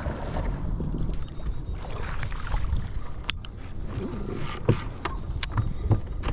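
Low, steady wind and water rumble on a small fishing boat, with a few short sharp clicks and knocks in the second half, likely from gear being handled on the boat.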